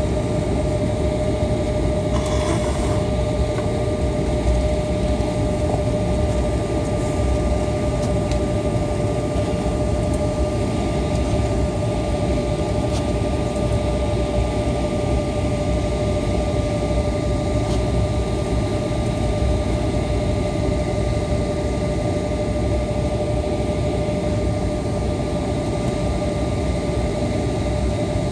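Jet airliner engines heard from inside the cabin: a steady low rumble with a constant whine over it.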